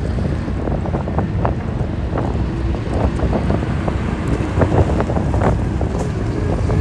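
Strong wind buffeting the microphone, with a Hino heavy truck's diesel engine running underneath as the truck drives past.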